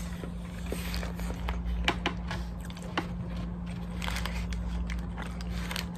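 Close-up chewing of a hamburger with the crinkle of its paper wrapper, heard as scattered small clicks and smacks. A steady low hum runs underneath.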